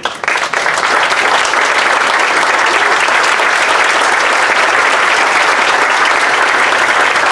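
An audience applauding: many hands clapping steadily, swelling from a few claps to full applause within the first half second.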